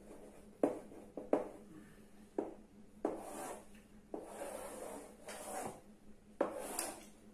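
Chalk on a blackboard: several short, sharp taps and strokes as letters are written, then two longer scraping strokes, about 3 and 4 to 6 seconds in, as long lines are drawn for a table.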